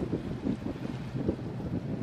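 Wind buffeting the microphone on a motorboat under way, over the low rumble of the boat running across the lake. The rumble is gusty and uneven rather than a steady engine note.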